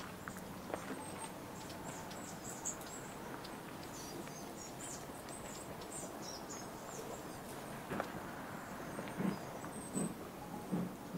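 Small birds chirping in short, high calls through the first half, over a steady outdoor background. Near the end, footsteps on the path, three steps a little under a second apart.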